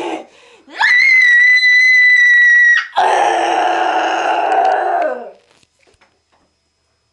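A girl screaming: one high, steady scream held for about two seconds, then a lower, rougher second scream of about two seconds that stops about five seconds in.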